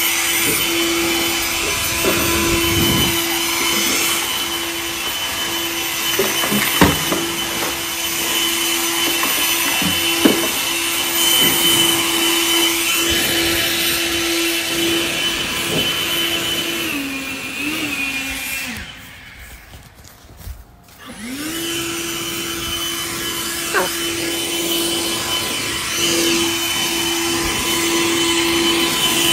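Handheld leaf blower running with a steady whine over a rush of air. About two-thirds of the way through it winds down and stops for a couple of seconds, then spins back up to speed.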